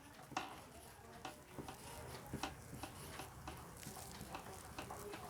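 Faint, irregular small clicks and ticks over low background noise.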